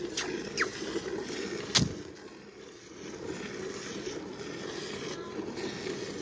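A buffalo being milked by hand: streams of milk squirting from its teats into a steel bucket, a steady splashing hiss. A few sharp clicks in the first two seconds, the loudest about two seconds in.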